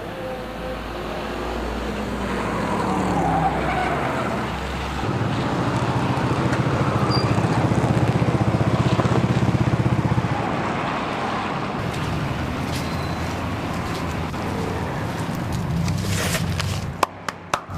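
Small motorcycle engine running as the bike rides up and slows to a stop, loudest about six to ten seconds in, with a few sharp clicks near the end.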